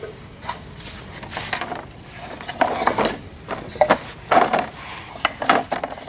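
Wooden beehive frames knocking and scraping against each other as they are handled, a run of irregular light clacks.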